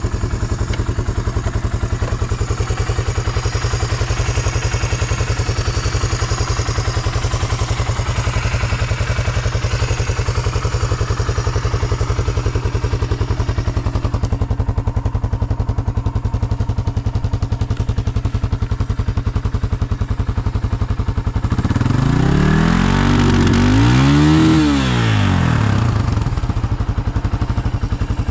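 Suzuki DR350 K406 single-cylinder four-stroke engine idling steadily, then revved up and back down about three-quarters of the way in, with another blip starting just at the end. It picks up revs cleanly with no abnormal noise.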